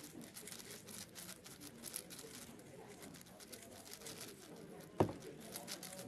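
A plastic 6x6 speedcube being turned fast: a rapid, uneven run of light clicks and clacks as its layers snap past each other, with one louder knock about five seconds in.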